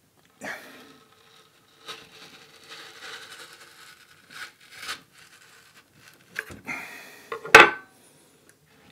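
A knife scraping and prying along a raw aloe vera leaf, the tough skin rubbing and tearing away from the slimy gel in several irregular strokes. A sharp knock sounds near the end.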